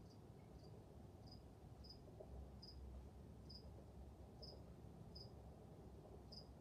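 Near silence: quiet room tone with a faint chirping insect, a short high chirp repeating roughly once or twice a second.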